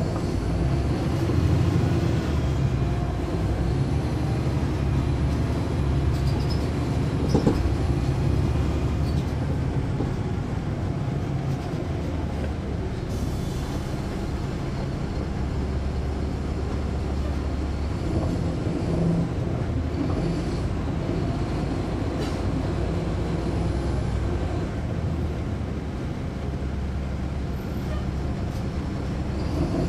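Caterpillar C13 ACERT diesel engine of a 2009 NABI 40-SFW transit bus running as the bus drives, heard from inside the cabin as a steady low rumble whose strength rises and falls with the engine's load.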